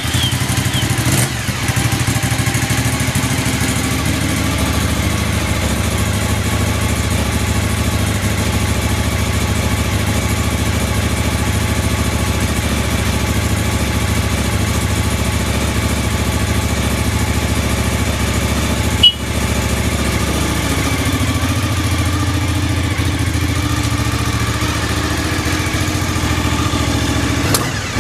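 Suzuki TL1000S's V-twin engine idling steadily just after an electric start. There is a single sharp click about two-thirds of the way through.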